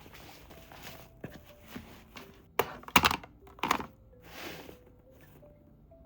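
A few sharp clicks and knocks, bunched together about halfway through, then a short rustle, over faint mallet-style background music.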